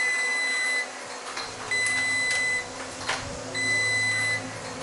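An electronic alarm beeping in long, even, high tones: three beeps, each just under a second long, about a second and three quarters apart. A few light clicks and taps sound between the beeps.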